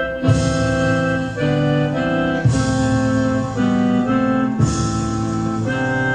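Slow, solemn instrumental mourning music on a keyboard, with held organ-like chords and a new chord struck about every two seconds, played for a minute of silence.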